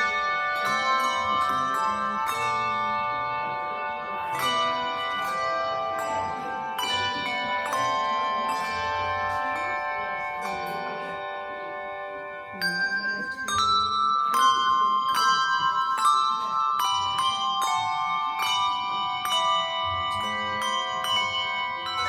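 Handbell choir ringing a tune on brass handbells: struck chords that ring on and overlap. About halfway through the strikes come louder and thicker.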